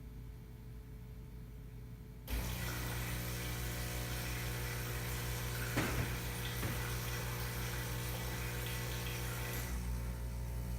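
Saeco Exprelia Evo super-automatic espresso machine's pump switches on about two seconds in and runs steadily with a buzzing hum and a hiss of water, as the machine runs its hot water function. A brief knock comes around the middle.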